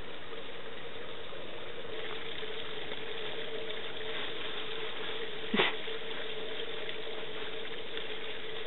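Water trickling and splashing steadily from a spout onto stones, under a faint steady hum, with one sharp knock about halfway through.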